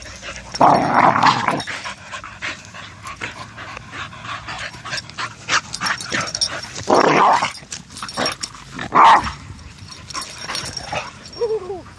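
Two dogs wrestling: bursts of growling about a second in, around seven seconds and again around nine seconds in, and a short falling whine near the end.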